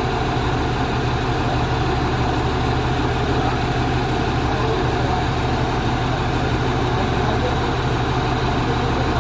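Four-axle truck's engine idling, a steady low hum that does not change.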